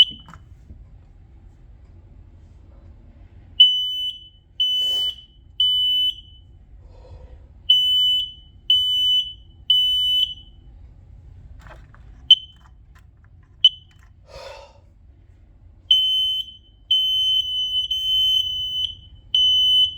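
Photoelectric smoke alarms sounding on test with a single high-pitched beep: two groups of three beeps with a pause between, in the temporal-three evacuation pattern, then two lone short chirps. Near the end, longer beeps follow one another with only short gaps.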